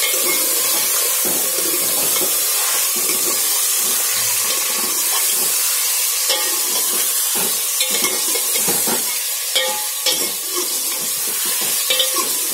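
Chicken pieces sizzling as they fry in hot oil in an aluminium pot, being browned, while a steel ladle stirs them and scrapes and clinks against the pot. The clinks come more often in the second half.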